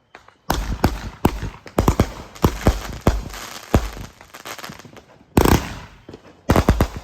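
Consumer fireworks going off: a fast string of sharp bangs with crackle for about three and a half seconds, then a louder bang a little after five seconds and two more close together near the end.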